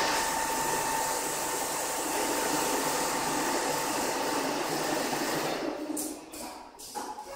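Richpeace four-head automatic template sewing machine running: a steady whirring drone with a thin high whine. The noise eases off about three quarters of the way through, and a few sharp clicks follow near the end.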